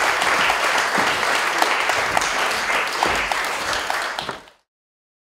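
Audience applauding, a dense patter of many hands clapping that fades and then cuts to silence about four and a half seconds in.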